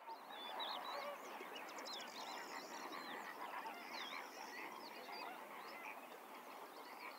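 Many animal calls at once: a dense, faint chatter of short squeaky chirps and quick up-and-down whistles, with a brief run of rapid clicks a little after two seconds in.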